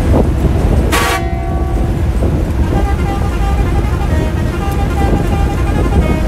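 Bus running at speed, heard from inside the cab as a heavy steady rumble, with a short loud horn blast about a second in. From about halfway on, steady pitched tones sound on and off over the rumble.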